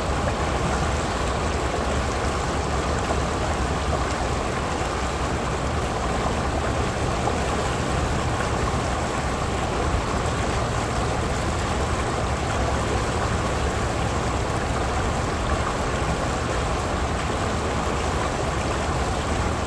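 Shallow river water pouring over a low rock ledge into a small riffle, a steady, unbroken rush.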